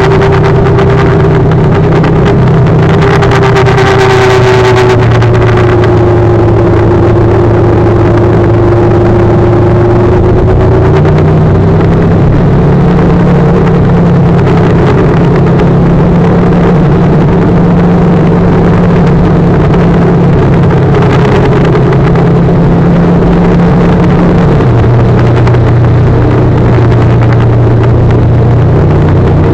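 Motorcycle engine running steadily at road speed, heard from on the bike, with rushing noise from the ride over the microphone. The engine note shifts to a new pitch about ten seconds in and again near the end, as speed or gear changes.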